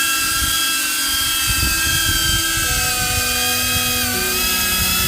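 DJI Avata FPV drone's motors and propellers whining steadily at high pitch after spinning up, the pitch dipping briefly about four seconds in.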